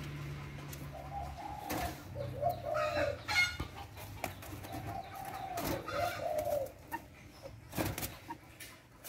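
Caged common moorhen giving a string of short, low, arched clucking calls, about five of them at roughly one-second spacing, as a hand provokes it through the bars: the bird is agitated and aggressive. A few sharp clicks and knocks from the cage wire come between the calls.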